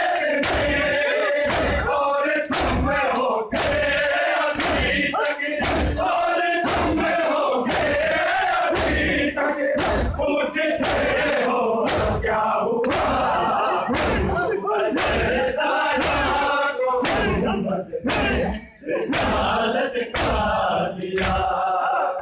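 A crowd of men chanting a mourning lament in unison while beating their chests with open hands (matam). The slaps come in a steady rhythm, roughly one and a half a second, over the chanting.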